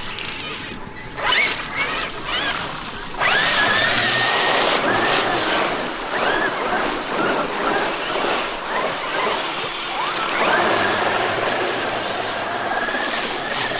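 Traxxas X-Maxx electric RC monster truck driving: its brushless motor whines, rising and falling in pitch with the throttle, over a loud rush of tires on rough ground.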